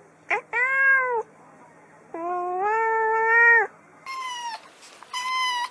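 A calico cat meowing: a short call and an arched meow in the first second, then a long, drawn-out meow. After that, a kitten gives two shorter, higher-pitched meows.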